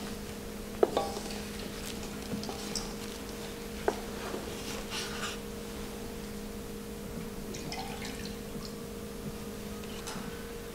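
Black baru monk's bowls knocking lightly as they are handled, with liquid pouring and dripping into a bowl. A low, steady hum runs underneath.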